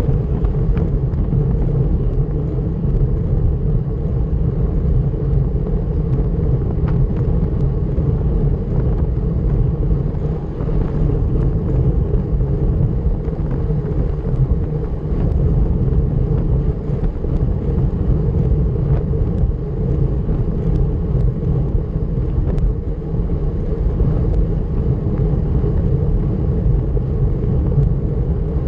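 Steady wind rush and road rumble from riding at time-trial speed, low and even, with a few faint small clicks scattered through it.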